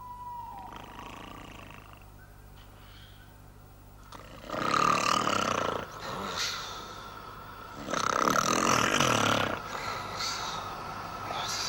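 A man snoring heavily, starting about four seconds in: a loud snore followed by a softer one, the pair repeating about every four seconds.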